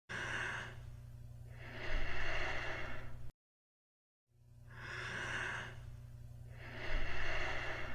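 A person breathing: two breath cycles, each a short inhalation followed by a longer, louder exhalation, with about a second of silence between them. A steady low hum runs under the breathing.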